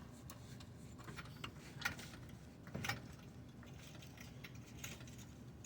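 A jack being worked under a 2009 Mazda 5 to lift it, heard as a few faint clicks. No pop comes from the replaced front subframe at this lift point.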